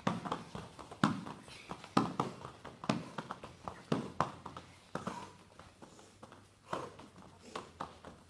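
Hands and forearms slapping onto foam floor mats during plank up-downs, in short thuds about once a second, fewer after about five seconds.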